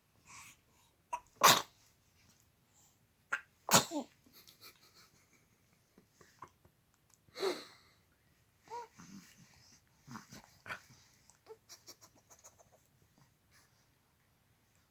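Sneezing: two loud, sharp sneezes about a second and a half and nearly four seconds in, a softer one near the middle, then scattered small snuffling sounds.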